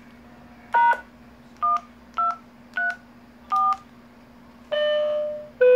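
DTMF touch-tones keyed on a two-way radio: five short two-tone beeps, pound then 1-2-3-4, the 'force time check' command for a repeater controller. Two longer steady beeps follow near the end.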